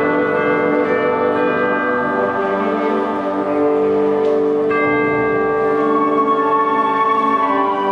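Concert wind band playing long held chords, the harmony shifting a few times. The chords have a ringing, bell-like colour.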